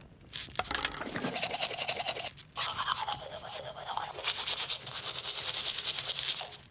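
Toothbrush scrubbing rapidly back and forth on teeth, a short break about two and a half seconds in before the brushing starts again.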